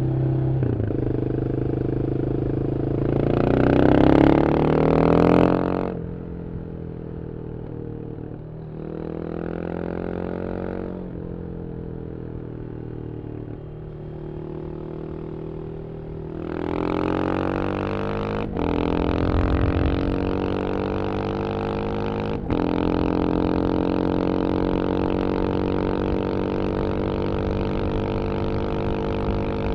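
Yamaha XT 600 single-cylinder four-stroke engine through a GPR Trevale aftermarket silencer, ridden at speed. It revs up hard under acceleration, eases off and runs lower for a while, then pulls again through two quick gear changes in the second half and settles into a steady high-rev drone.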